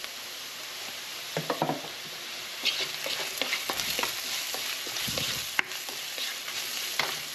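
Onion and spice sofrito sizzling in oil in a nonstick wok while a spoon stirs it, with frequent short clicks and scrapes of the spoon against the pan. The spices are toasting in the oil.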